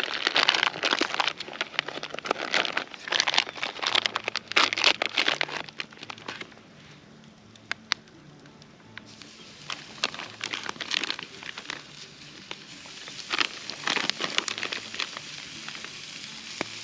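Plastic meat packaging crinkling and rustling as steaks are unwrapped, busiest for the first six seconds, then quieter with scattered rustles and crackles.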